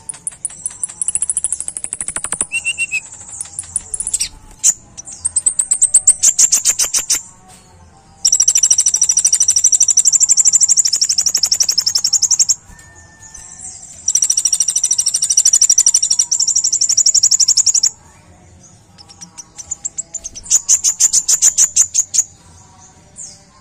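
Kolibri ninja sunbird singing loud and high-pitched: bouts of fast trills of rapidly repeated notes, and two long unbroken stretches of dense chattering song about eight and fourteen seconds in, with short pauses between bouts.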